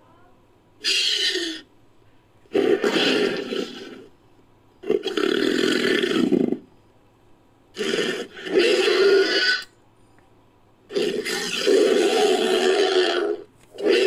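Made-up monster sound effect for a fictional Orthoceras, built from a Proceratosaurus sound effect and pig sounds. It runs as a string of about six calls, each under a second to about two and a half seconds long, with short pauses between them.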